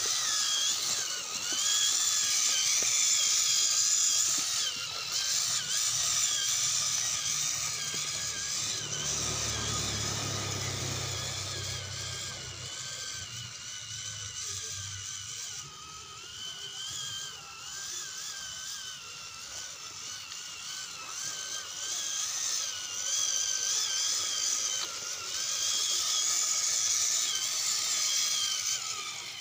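Whine of an RC crawler's small electric motor and gearbox, its pitch wavering up and down as the throttle changes. A brief low rumble comes about ten seconds in.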